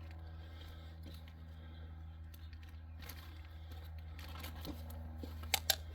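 Light clicks and scrapes of a 10 mm wrench loosening the oil drain plug on a small engine, with two sharp metallic clicks close together near the end, over a steady low hum.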